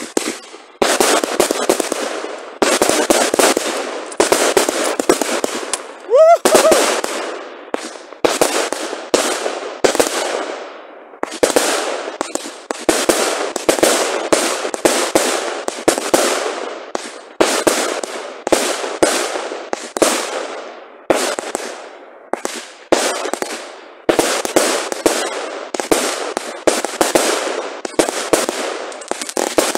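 Consumer firework batteries fired on New Year's Eve, launching shot after shot at about one a second. Each shot is a sharp report that trails off. About six seconds in there is a short rising whistle.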